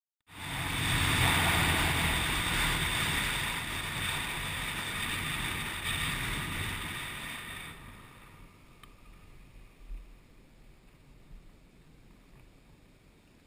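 Wind and road rush on a GoPro's microphone as a Yamaha FZ1 motorcycle rides along; it starts abruptly, stays loud for several seconds, then dies down to faint about eight seconds in.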